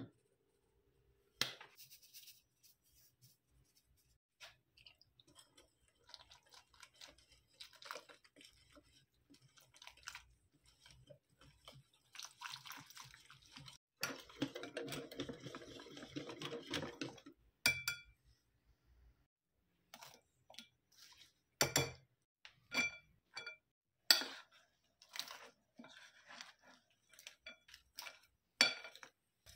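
Batter being mixed by hand in a glass bowl: a whisk working through wet batter, then a spoon stirring in bean sprouts and shrimp. Through the later part, several sharp ringing clinks sound as the metal strikes the glass.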